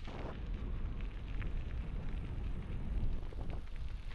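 Wind buffeting the microphone while cycling: a steady low rumble.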